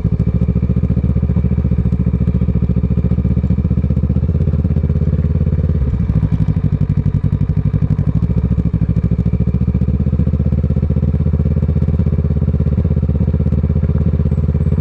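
Kawasaki ER-6n's 649 cc parallel-twin engine, fitted with a Scorpion exhaust, running steadily at low revs with a low-pitched, pulsing note that shifts slightly in pitch a few seconds in.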